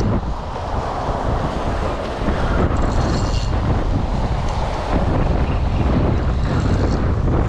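Wind buffeting the microphone in a steady rumble, with choppy bay water washing against the rocks.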